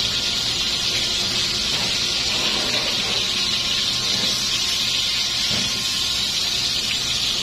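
Tuna steaks sizzling in hot oil in a frying pan, a steady hiss.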